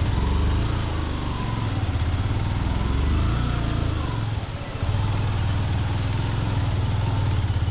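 Motorcycle engine running steadily. It eases off briefly about four and a half seconds in, then picks up again.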